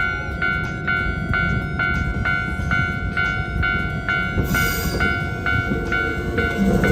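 Japanese railway level-crossing warning bell ringing about twice a second as a Hankyu train rumbles past. A brief high squeal comes about two-thirds of the way through.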